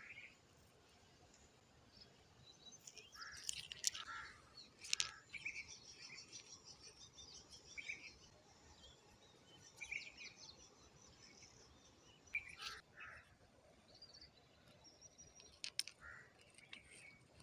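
Small birds chirping on and off, with a few sharp clicks of pebbles knocking against each other in the hand; the loudest clicks come about four and five seconds in.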